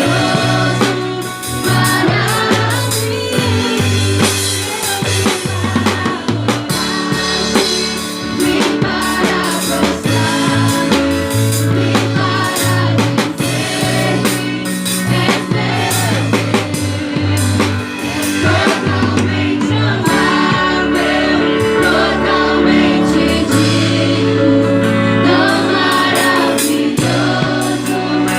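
Gospel worship song with singing over a band: bass, drum kit and backing voices.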